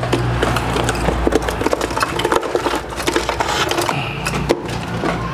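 Rapid, irregular clicking and rattling of a bird cage and transport box being handled as a hwamei is let out into its cage, over a steady low hum.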